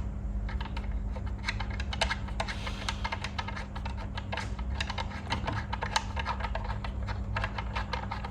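Hand tools on the motorcycle engine making a continuous run of quick, irregular light metallic clicks, over a steady low hum.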